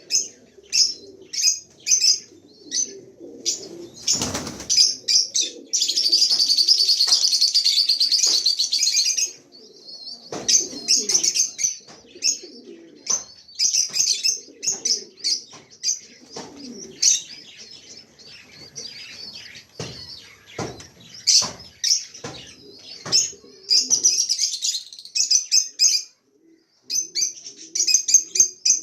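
African lovebirds chirping with short, sharp, high-pitched calls, breaking into a long unbroken burst of chatter from about six to nine seconds in. Several sharp knocks sound among the calls.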